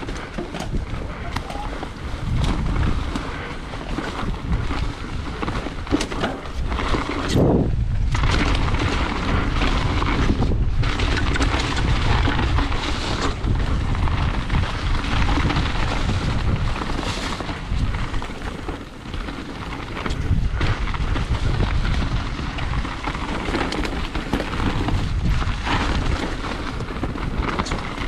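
Mountain bike riding down a wet, muddy trail: wind rushing over the microphone over a steady rumble and rattle from the ride.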